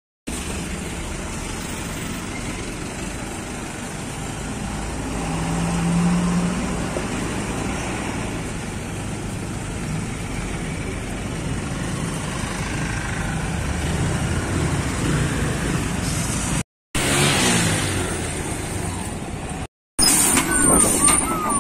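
Highway traffic of cars and trucks passing close by, a steady rush of engines and tyres. Near the end a truck passes right alongside, louder, with some high wavering tones.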